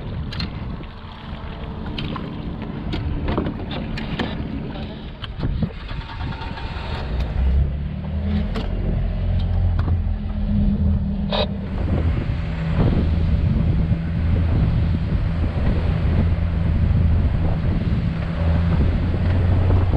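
Motorboat engine running, quieter with a few scattered knocks and clicks at first, then throttled up about seven or eight seconds in to a steady, louder drone as the boat gets under way.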